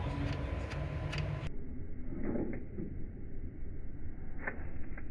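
A few light clicks and knocks of a hand tool unscrewing the oil drain plug on a 2020 Honda Civic, over a low steady rumble.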